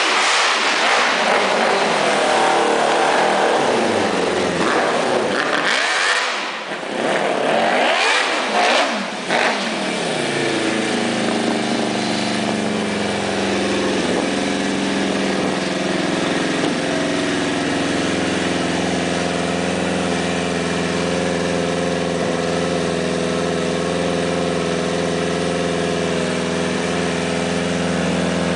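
Suzuki GSX-R750 inline-four motorcycle engine in a home-built buggy, revved up and down repeatedly over the first ten seconds or so, then settling to a steady idle.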